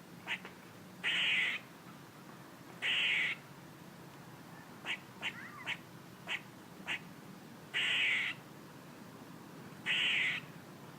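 A squirrel calling: short, sharp barks, singly and in quick groups of two or three, broken by four longer, rasping calls of about half a second each. This is the kuk-and-quaa pattern of a squirrel's alarm call.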